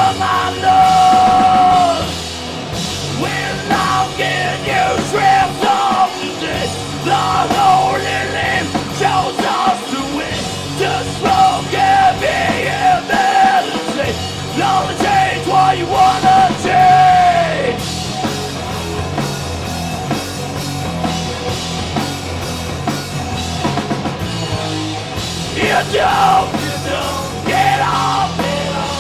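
A punk rock band playing live: drums, guitars and shouted vocals.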